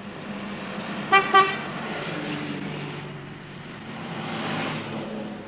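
Old bus's horn tooting twice in quick succession, over the steady running of its engine and the road noise.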